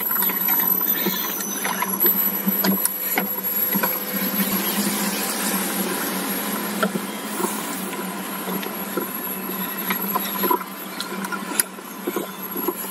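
Steady noise of a road bike being ridden uphill, with scattered light clicks and ticks.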